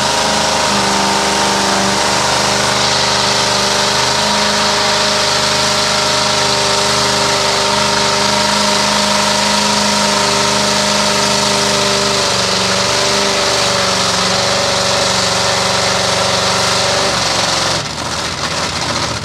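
Lifted mud-bog truck's engine held at steady revs, loud and droning, as the truck churns slowly through deep mud; near the end the engine note drops and changes.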